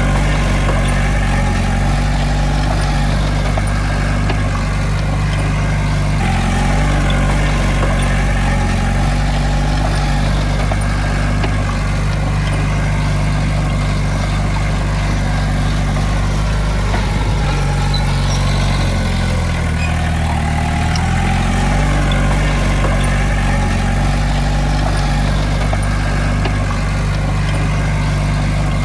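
Diesel engine of a small Komatsu D20A bulldozer running steadily, its engine note dipping and rising again twice, about a quarter of the way in and about two thirds of the way in.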